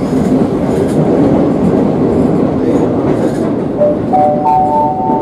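Madrid Metro series 8400 train running between stations, heard inside the car as a steady loud rumble of wheels on rail. About four seconds in, a three-note rising chime sounds over it, the onboard signal that comes before a next-station announcement.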